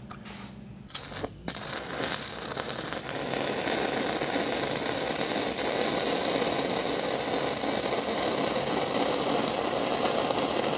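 Stick welding arc from an E6010 electrode running the root pass on steel pipe. The arc picks up about a second and a half in, then burns steadily.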